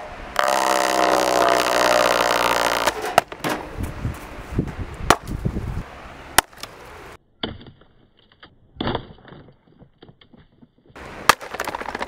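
Electric desk fan being broken apart while running: a loud rattling buzz of the shaking grille and blades at first, then several sharp cracks and knocks of plastic blades breaking.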